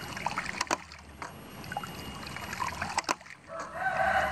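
Hand-primed hydraulic ram pump: its brass swing-check waste valve clacking a few times as it is pushed down and snaps back, with water splashing at the valve. Near the end a louder held pitched call comes in.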